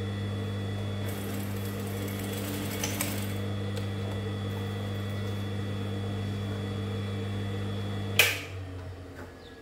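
Gemsy industrial sewing machine running with a steady motor hum. A sharp click comes about eight seconds in, after which the hum dies away.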